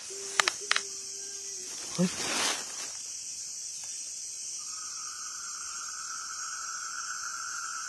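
Steady high-pitched chirring of night insects, with a second steady whine at a lower pitch joining about halfway through. Near the start there are two light clicks, a short low hum, and a brief breathy rustle.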